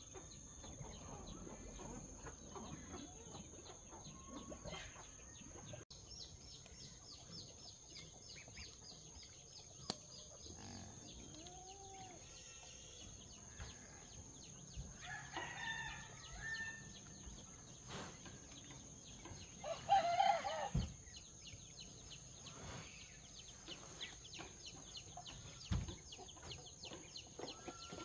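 Free-range chickens: a rooster crows once about twenty seconds in, with scattered faint clucks and calls around it, over a steady high-pitched insect drone.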